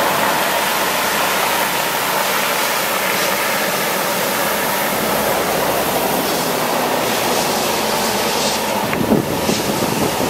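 Water rushing out of a water truck's spray heads in a steady, loud hiss, with the truck's Caterpillar C9 diesel running beneath it to drive the PTO spray pump. A brief thump sounds near the end.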